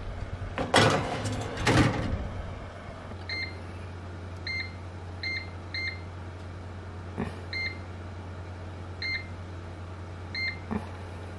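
A metal baking pan slides onto an oven rack and the oven door shuts with a clatter. Then the electronic oven control panel gives about seven short high beeps, one per button press, as the cooking timer is set. A low steady hum from the running oven continues underneath.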